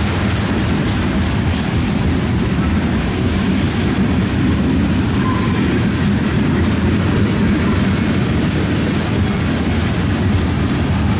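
Freight train tank cars rolling past: a steady rumble of steel wheels on rail.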